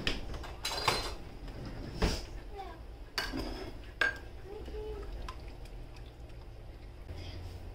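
Kitchen clatter: several sharp clinks and knocks of a metal measuring cup and dishes on the counter, the loudest about two and four seconds in, followed by a wire whisk stirring in a plastic mixing bowl.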